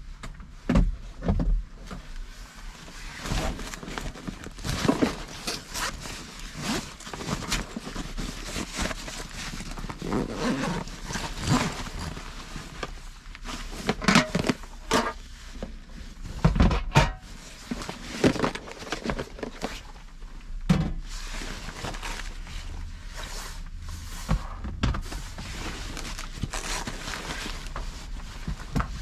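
Rain on the roof of a parked Honda Step Wagon minivan, heard from inside the cabin: irregular taps of drops, with a few heavier thuds.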